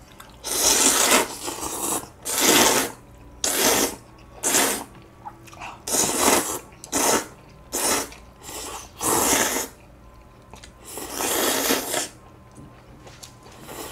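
Two people slurping cold noodles, kongguksu soy-milk noodle soup and cold noodles in broth, in about ten long slurps of under a second each, close to the microphone.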